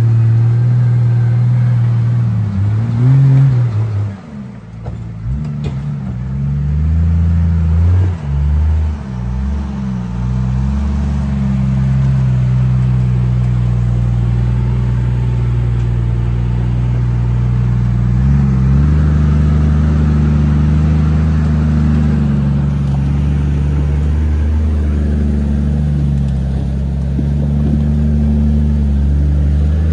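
Lifted off-road Jeep's engine revving up and down under load as it crawls over rocks, with a brief drop in level about four seconds in.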